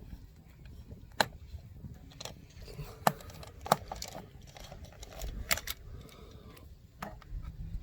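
A handful of sharp, scattered metallic clicks and clinks of hand work with small metal parts while disconnecting an old doorbell's wires, over a low background rumble.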